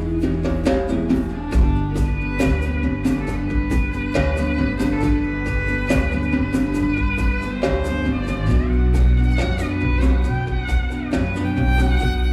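Live flamenco-style instrumental: a violin plays a sustained melody, sliding between notes about two-thirds of the way in, over nylon-string guitar, electric bass and steady percussion.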